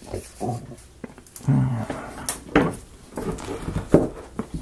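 Thin laser-cut plywood model parts being handled, popped out and fitted together: a series of light wooden clicks and knocks, the sharpest one near the end.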